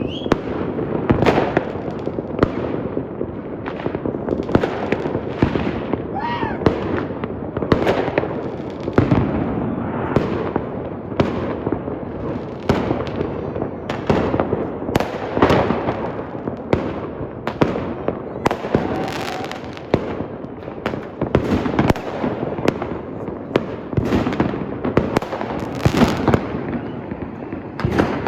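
Fireworks display going off in quick succession, a dense run of sharp bangs several a second, with a brief whistling rocket about six seconds in.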